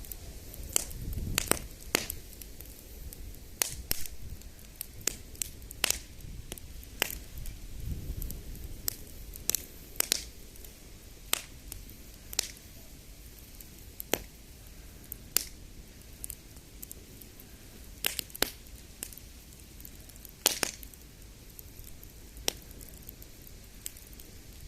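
Wood campfire crackling, with sharp irregular pops every second or so.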